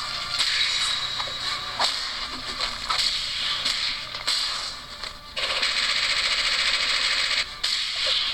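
Animated fight sound effects played through a TV speaker: scattered hits and swishes, then a steady harsh rush of noise for about two seconds starting about five and a half seconds in.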